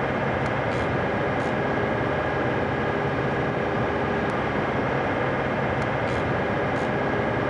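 Takeuchi TB290 mini excavator running steadily while its grading bucket smooths a slope of soil, a constant drone with a few faint ticks now and then.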